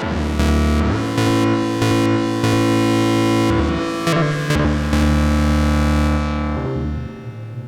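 Behringer Neutron semi-modular analog synthesizer playing sustained, buzzy bass notes that step in pitch a few times. Near the end the filter closes, so the tone turns dark and quieter.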